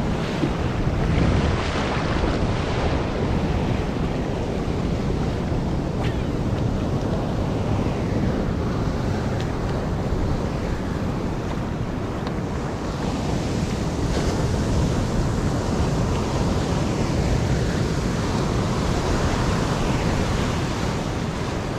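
Rough sea: waves and surf washing around a small kayak, with wind buffeting the microphone in a steady rush.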